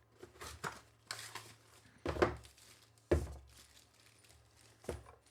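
Packets of mounting hardware (screws, washers, anchors) being handled and set down on a table: plastic crinkling with a few knocks, the loudest about two and three seconds in, and another near the end.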